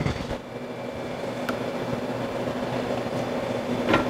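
Steady machine hum with a few faint clicks and light handling sounds as a wet beef middle casing is slid onto a stainless steel sausage stuffer horn.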